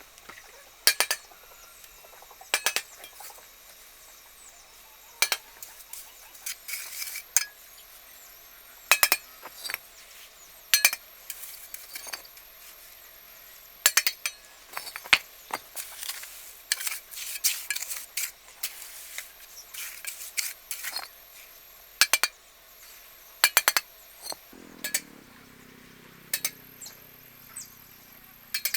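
Irregular sharp clinks and taps of hard objects knocking together, often several in quick succession. Near the end a low drawn-out sound briefly joins them.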